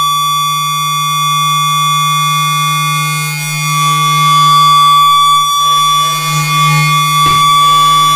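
Live electronic music of held sine tones from a cable-patched electronic rig: a steady low drone with a bright, steady high-pitched tone and many thin higher tones layered over it. A short sharp noise burst cuts across it about seven seconds in.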